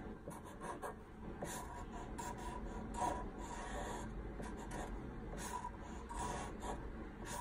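Felt-tip marker drawing on paper: faint, irregular short scratchy strokes as letter outlines are traced.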